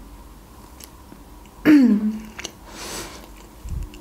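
A woman's short wordless hum, falling in pitch, a little under halfway through, followed by a soft breath. A few faint mouth clicks.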